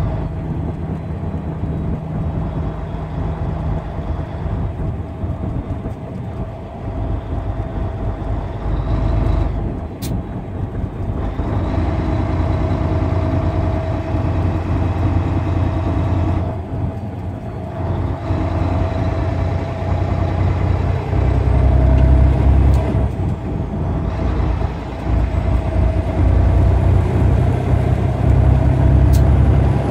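Semi-truck driving on the highway: a steady diesel engine drone with road noise, the low rumble growing heavier in the second half. Two sharp clicks come through, about ten seconds in and near the end.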